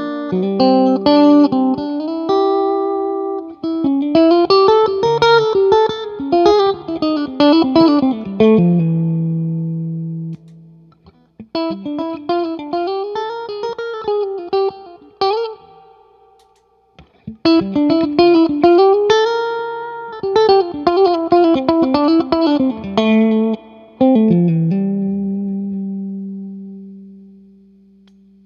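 Electric guitar phrases with string bends, played through a photo-optical tube compressor pedal. The notes ring out and fade slowly. There are two short pauses, and a last held note dies away near the end.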